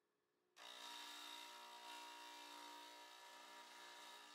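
Electric motor of a workshop bench machine cutting in abruptly about half a second in and running with a steady whir and whine.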